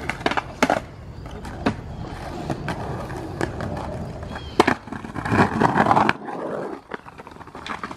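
Skateboard wheels rolling over rough stamped concrete, a steady rumble, with several sharp clacks of a board striking the ground during a trick attempt. The rolling stops about six seconds in.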